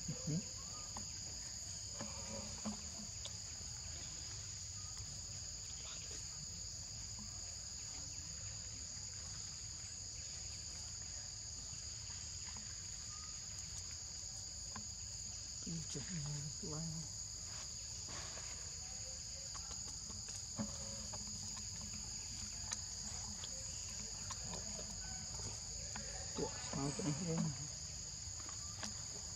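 Steady high-pitched insect chorus, two unbroken shrill tones running on without pause, over a low rumble. A couple of brief low voice-like sounds come through about halfway and again near the end.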